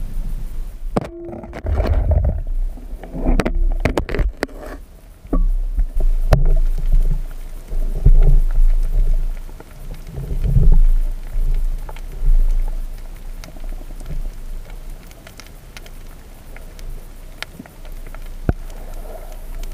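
Muffled underwater noise heard through a camera housing: low rumbling and gurgling swells, with a cluster of sharp knocks and clicks in the first few seconds.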